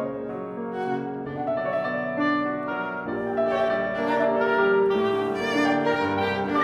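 Classical chamber music for oboe, viola and piano: held melodic notes from the oboe and viola over piano.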